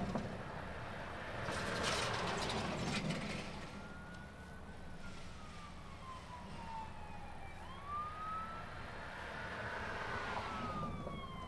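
Emergency vehicle siren in a slow wail, starting about three seconds in: long falling sweeps with a quick rise between them, from an approaching fire-department rescue squad. A swell of road-traffic noise comes just before it.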